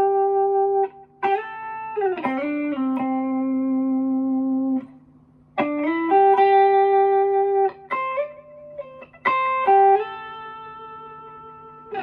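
Yamaha SG electric guitar played clean on its front pickup through a Mesa/Boogie Mark IIB amp, with an MXR Dyna Comp Deluxe compressor and a light short analog-style delay. It plays chords and melodic lines in four phrases with short breaks, the notes held and ringing out in a glossy tone.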